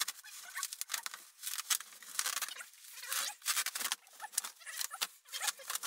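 Bubble wrap crinkling and tearing as it is cut and pulled away, played back sped up, so the sound comes as a quick, busy run of crackles.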